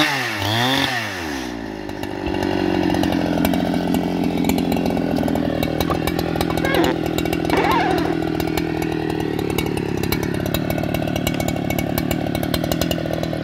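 Husqvarna 395XP chainsaw with a 1.20 m bar revving high and unevenly at the end of a lengthwise cut through a plank. About a second and a half in it drops to a steady idle, which it holds.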